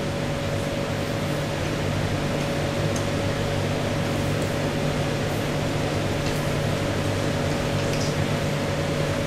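Steady room background noise: an even hiss with a constant low hum and a steady higher tone, with a few faint ticks.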